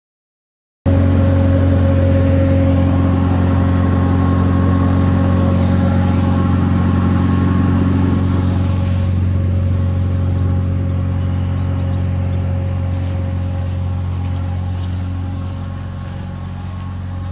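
An engine running steadily at a constant speed with a deep, even hum. It begins abruptly about a second in and fades a little over the last couple of seconds.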